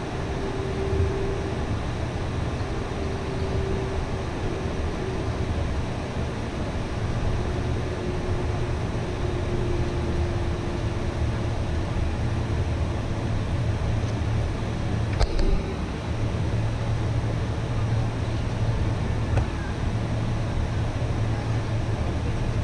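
Boeing 747 cabin noise while taxiing: a steady low engine hum heard through the cabin, with a faint whine in the first half that fades out. A single sharp click about fifteen seconds in.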